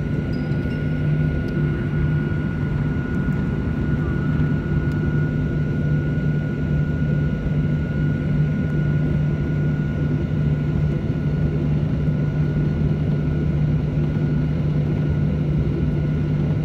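Boeing 737-800's CFM56-7B turbofan engines running at low thrust while the jet taxis onto the runway, heard from inside the cabin over the wing. A steady deep drone with a thin high whine held at one pitch, neither rising nor falling.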